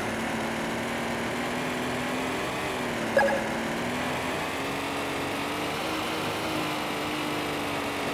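Steady hum of a small RC car's electric motor, its pitch drifting slightly up and down as the car drives, with a short faint chirp about three seconds in.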